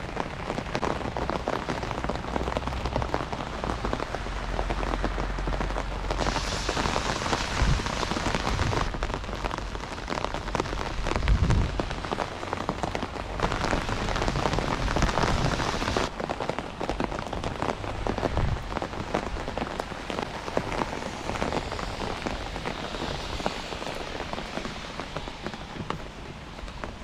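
Heavy rain pouring down on a city street, a dense steady hiss that swells harder twice, with a few short low thuds.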